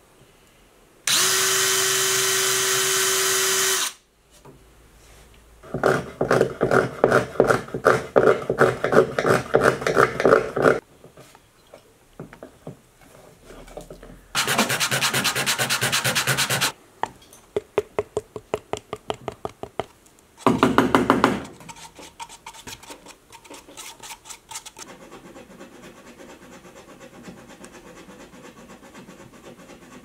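Workshop sounds in quick succession: a drill runs steadily for about three seconds as it bores into wood, then a burst of quick, rhythmic rubbing strokes lasts about five seconds. A second steady machine run of about two seconds follows, then a string of separate clicks and a short loud burst, ending in a faint steady hum.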